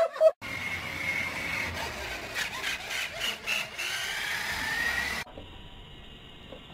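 Small electric motor and gears of a toy dump truck whining as it drives along, with clicks and a pitch that rises near the end. It stops abruptly, and a much quieter steady hum of a robot vacuum follows.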